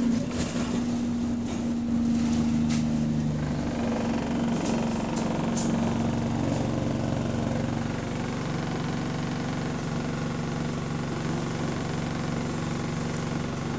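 Diesel engine of an Alexander Dennis Enviro200 single-deck bus, heard from inside the saloon. It winds down over the first few seconds and then holds a steady idle. A few light clicks come around five seconds in.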